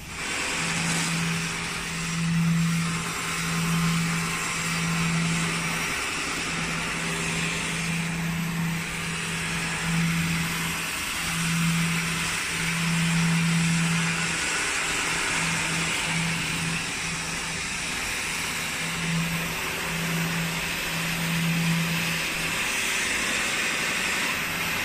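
CNC abrasive-belt polishing machine running, its sanding belt grinding a metal faucet body as the arm moves the part against it: a steady hiss of abrasion with a low hum that cuts in and out every second or so.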